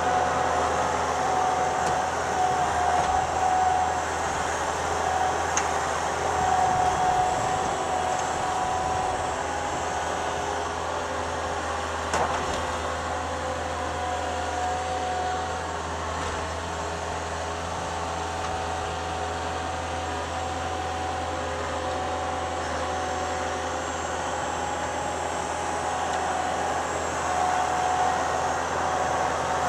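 Thomas 153 skid steer running steadily with a high whine over the engine, swelling slightly a few times, with a single sharp click about twelve seconds in.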